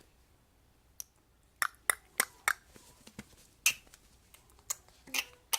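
About ten short, sharp clicks at an uneven pace, some in quick runs about a third of a second apart.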